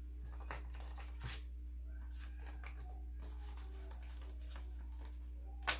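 Paper banknotes handled and sorted by hand: soft rustling and a few crisp flicks and snaps of the bills, the sharpest near the end, over a steady low hum.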